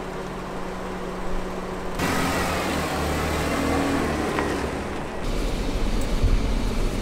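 Jeep Wrangler engine running as it drives off on a paved road. A little over two-thirds of the way in, the sound changes abruptly to engine and road rumble heard from inside the cabin, heavier in the low end.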